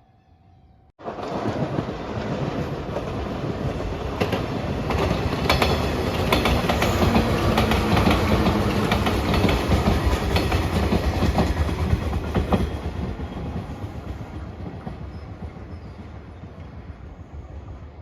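A train passing close by, its wheels clacking over the rail joints. It starts abruptly about a second in, is loudest in the middle and fades away toward the end.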